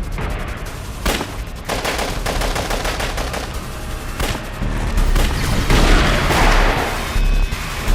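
Rapid bursts of gunfire in a film shootout over a low rumble, growing loudest about five and a half seconds in.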